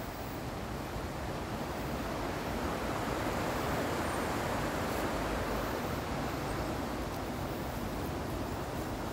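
Shallow stream rushing over stones, swelling to its loudest about halfway through, then easing off.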